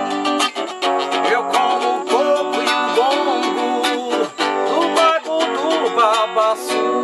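A man singing with vibrato over a strummed skeleton-frame silent guitar played through a cable pickup.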